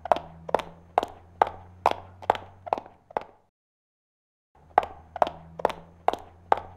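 Regular sharp knocks, a little over two a second, each with a short ringing tail, over a low steady hum. The knocks break off in a second of dead silence in the middle, then start again at the same pace.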